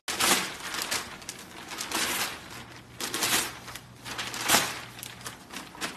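Newspaper rustling and crinkling as a golden retriever grabs the page in its mouth and pulls at it: irregular crackles with several louder swells.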